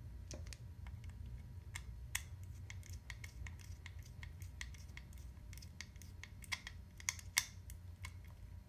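Small irregular clicks and scratches of fingers pushing stripped motor wires into a motor driver board's terminal block, wire ends and plastic ticking against each other, with a few louder clicks about seven seconds in. A steady low hum runs underneath.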